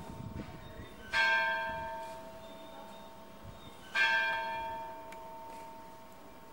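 A church bell struck twice, about three seconds apart, each stroke ringing on and slowly dying away.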